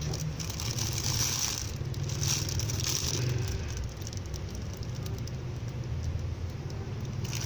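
Plastic packaging crinkling as a hand handles bagged squishy toys, in a few short spells during the first half, over a steady low hum.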